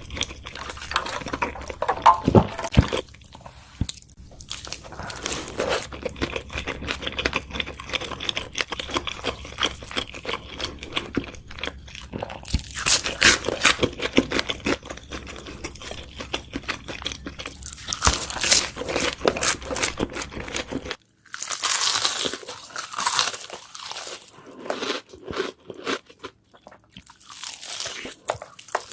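Close-miked eating of crispy chicken burgers: loud crunching bites and chewing, coming in bursts. About two-thirds of the way through, the low background hum cuts out as it changes to another eater.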